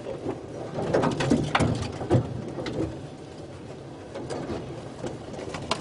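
A dove cooing over a steady low background, with a cluster of sharp clicks and knocks about a second in and a few more near the end.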